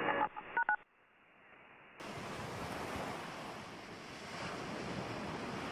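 Shortwave radio static that ends with two short beeps, then after a brief lull, ocean surf washing steadily onto a beach.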